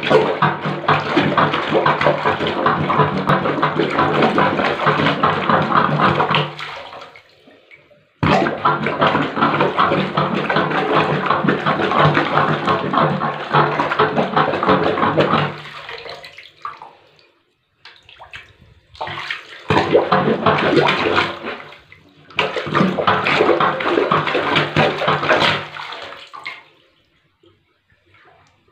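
Rubber plunger pumped fast over a bathtub drain, water squelching and splashing in four spells of several seconds each with short gaps between: a clogged drain being plunged clear.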